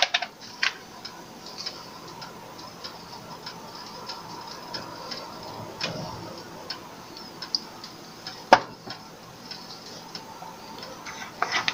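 Butter and a little olive oil frying in a nonstick wok on low heat: a soft, steady sizzle with irregular small crackles and ticks. A single sharper click about eight and a half seconds in.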